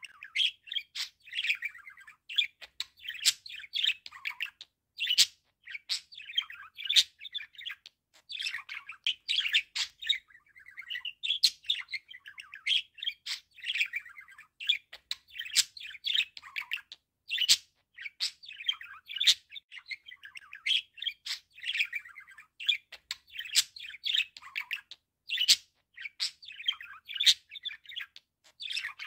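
Budgerigar warbling: a continuous run of chirps and chatter mixed with sharp clicks, broken only by brief pauses.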